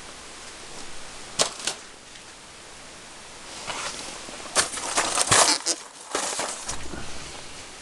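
Rustling and sharp clicks over a steady hiss: two clicks a little over a second in, then a longer stretch of rustling and clicking from about halfway to near the end, loudest just past the middle.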